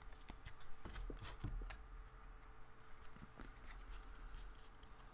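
Faint taps and rustling of baseball trading cards being handled and set down onto stacks on a table, with irregular soft clicks and a faint steady hum underneath.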